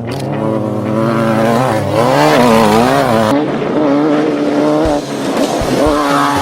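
Off-road race vehicle's engine running under throttle, its pitch swinging up and down as the revs rise and fall, with a few short low thumps near the end.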